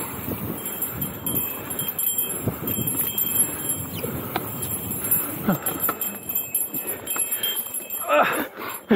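2013 Specialized S-Works Enduro 26 mountain bike riding over a dirt trail: tyre noise with a steady run of knocks and rattles from the bike over the rough ground.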